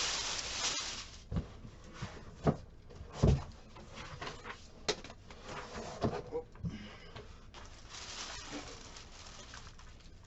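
Rustling and a series of knocks and thumps as a cash drawer's cardboard and plastic packaging is handled; the loudest knock comes about three seconds in.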